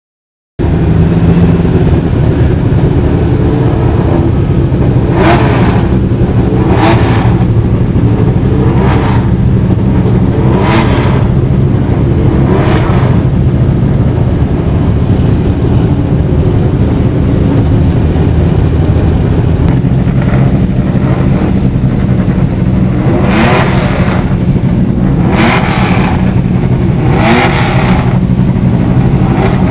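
Historic racing car engines running at a loud, rough idle, blipped sharply on the throttle about every two seconds: a run of five short revs, then after a pause three more near the end.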